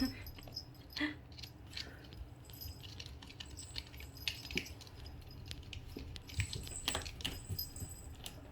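Scattered light clicks and rustles with brief, high metallic jingles, from kittens being handled and playing.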